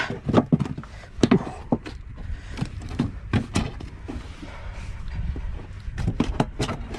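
Irregular knocks and taps on a small boat's planked deck as fish and gear are handled, over a steady low rumble.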